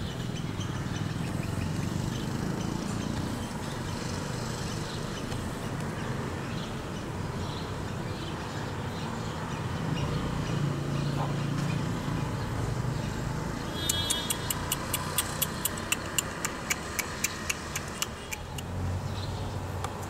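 Steady low outdoor rumble, like distant traffic. Near the end, a quick run of sharp clicks, about four a second, lasts about four seconds.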